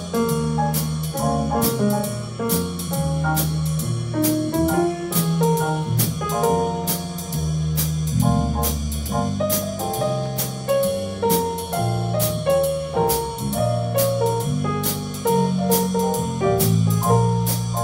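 Live jazz combo playing: grand piano takes the lead over a drum kit keeping time on the cymbals and a low bass line.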